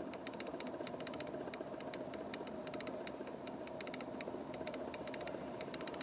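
Wood fire crackling inside a glass-fronted fireplace insert: irregular sharp pops and snaps over a steady whirring hum, picked up by a camera's built-in microphone.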